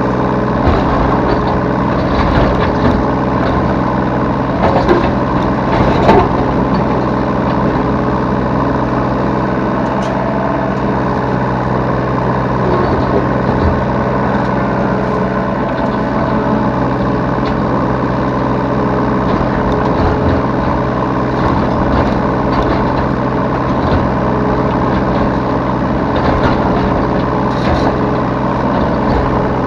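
Yanmar B3 Sigma 3-ton mini excavator's diesel engine running steadily while working, with a few sharp knocks about five to six seconds in.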